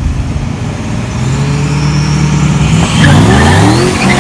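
A turbocharged 3.8-litre V6 Buick Grand National and a Ford Mustang hold steady revs at the start line, then launch about three seconds in. The sound jumps sharply in loudness and the engine notes climb quickly in pitch.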